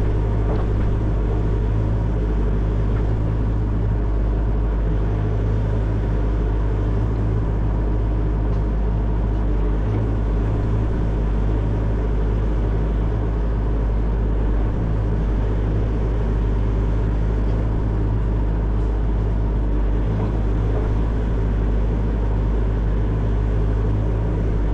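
Excavator's diesel engine running steadily under work, a constant low drone with no breaks or sharp impacts.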